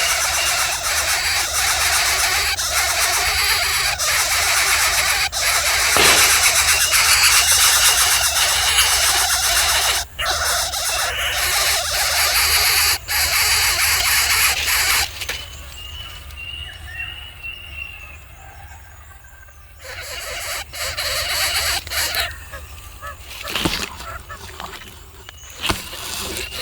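A bird calls a rapid run of short high notes over a loud rushing noise. About halfway through the noise drops away and a clear run of about six notes is heard.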